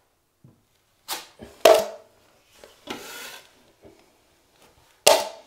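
Metal drywall taping knife working joint compound: a few sharp scrapes and clacks, the loudest with a short metallic ring, and a softer scraping swipe around the middle.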